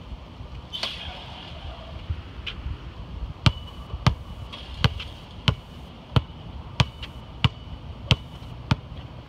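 A basketball dribbled on a concrete sidewalk: about nine steady bounces, a little over one a second, starting about three and a half seconds in, each a sharp smack with a short ringing ping. A single knock comes about a second in.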